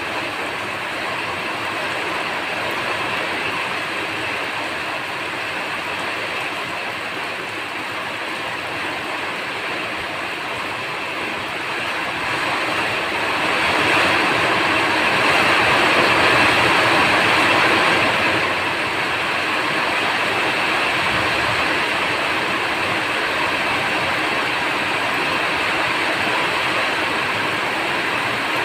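Steady rain falling, a continuous even hiss that swells heavier for several seconds about halfway through, then eases back.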